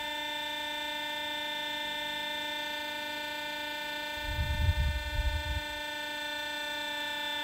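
13-inch MacBook Pro cooling fan running with a steady whine of several pitched tones: the fan is bad enough to be replaced. A brief low rumble from about four to six seconds in.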